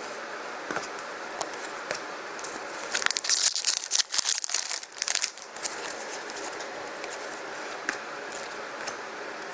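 Foil trading-card pack wrapper being torn open and crinkled: a dense crackling burst about three seconds in, lasting close to three seconds, with a few light clicks before and after.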